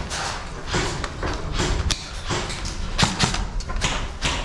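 Irregular thumps and sharp knocks, a few a second, loudest in a cluster around three seconds in.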